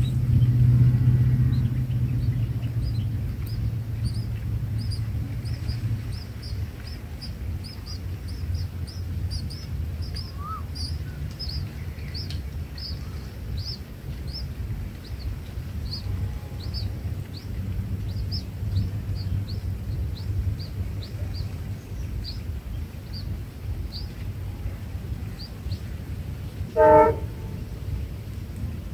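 High, short bird chirps repeating two or three times a second over a steady low rumble, then a brief, loud blast of a train horn near the end.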